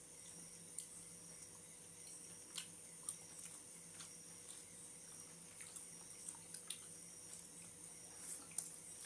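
Close-up eating sounds of two people eating chicken biryani by hand: faint wet chewing and mouth smacks, with scattered sharp clicks. Underneath is a steady faint hum.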